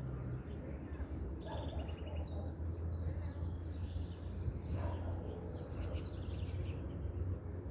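Many small birds chirping and trilling together in a dawn chorus, over a steady low rumble.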